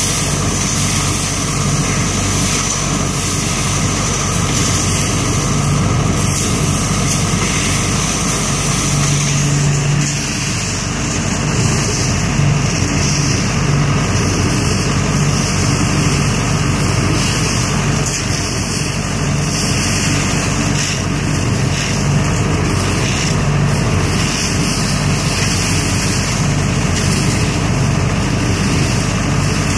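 ODB 650 trailer-mounted leaf vacuum running steadily, its engine driving the fan that sucks raked leaves up the intake hose.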